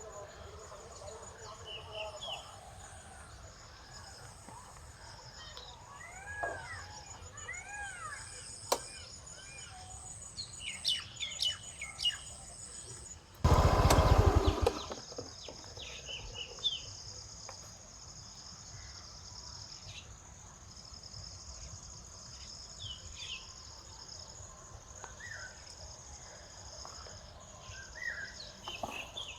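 Wild birds chirping and calling in short arching whistled notes over a steady high insect buzz. About halfway through, a loud rushing noise lasts about a second.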